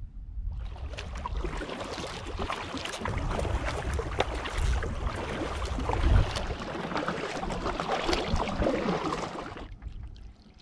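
Kayak being paddled: the paddle blades splash and water washes along the hull in a dense spattering noise that starts about half a second in and stops abruptly near the end.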